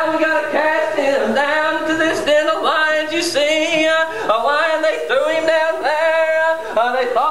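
Unaccompanied a cappella singing by voices, with no instruments.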